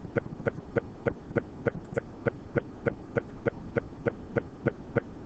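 Steady, evenly spaced ticking, about three and a half sharp ticks a second, keeping an unbroken beat.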